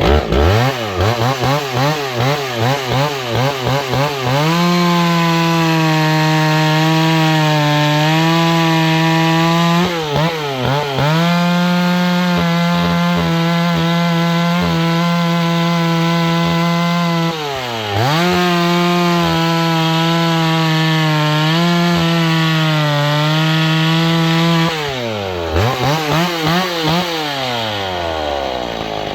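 Vintage McCulloch 10-series two-stroke chainsaw with a 30-inch bar. It is revved up and down in quick blips, then held at a steady high pitch through three long cuts into wood, the engine dropping back briefly between them. Near the end it is blipped again and falls toward idle.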